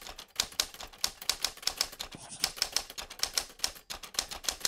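Typewriter keys striking one after another, about four or five clacks a second in an uneven rhythm.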